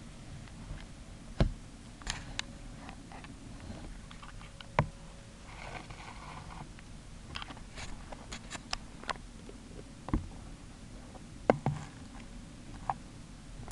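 Scattered light clicks and taps on a plastic hamster bin, with a short rustle of wood-shaving bedding about six seconds in.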